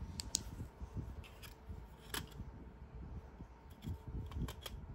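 Handling noise from a disassembled weather alert radio's circuit board and plastic chassis being moved about by hand on a fleece blanket. Scattered small clicks and taps, the loudest about two seconds in and several more near the end, sit over soft rubbing, with a faint steady hum underneath.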